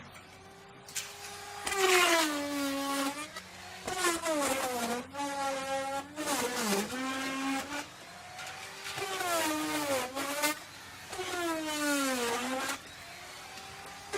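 Electric wood router cutting wood. The motor's whine sags in pitch each time the bit is loaded in the cut and climbs back as the load eases, about five times over.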